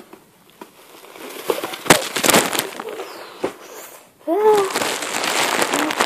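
Plastic packaging crinkling and rustling as hands rummage in a package, with sharp crackles and a louder snap about two seconds in. A short gliding squeak about four seconds in, followed by more rustling.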